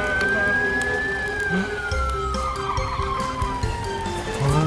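Cartoon fire-engine siren wailing slowly over background music: its pitch rises for about a second, falls for about three seconds, and starts rising again near the end.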